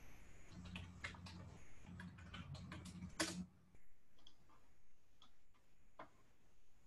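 Faint, irregular clicks of a computer being worked, several a second for about three seconds, then only a few. A low hum underneath stops about three and a half seconds in.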